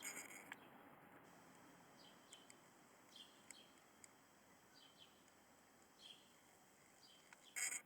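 Faint birdsong: short, high, downward-sliding chirps about once a second, with a brief louder, sharper high sound near the end.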